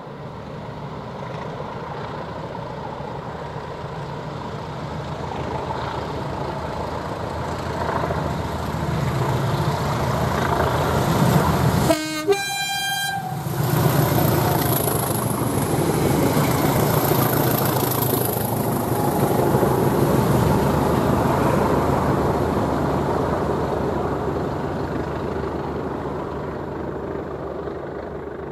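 Diesel locomotive approaching under power with its engine working hard, sounding a short two-note horn about twelve seconds in. It then passes close by with its train rolling behind and fades away.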